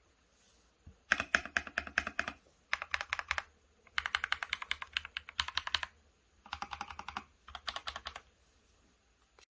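Mechanical keyboard with Akko CS Silver linear switches and PBT OSA keycaps in a FEKER IK75 gasket-mount case, typed in five fast flurries of keystrokes with short pauses between them.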